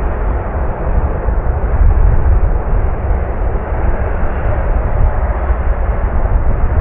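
Lufthansa Airbus A380-841's four Rolls-Royce Trent 970 turbofans running at low power as the jet taxis, a steady rumbling jet noise with no sudden changes.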